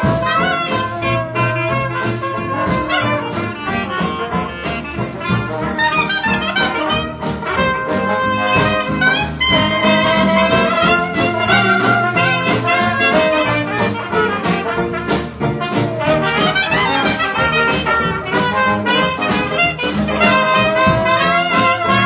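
Traditional New Orleans jazz band playing live: trumpet, clarinet and trombone playing lines together over banjo, piano, string bass and drums, with a steady beat.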